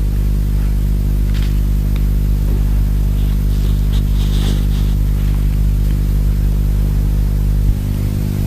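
Propeller aircraft engines droning steadily at one unchanging pitch, with a few faint scrapes and ticks on top.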